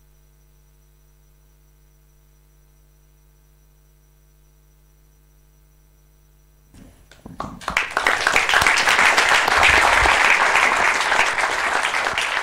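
A faint steady electrical hum, then an audience breaks into applause about seven seconds in, building quickly to full, dense clapping.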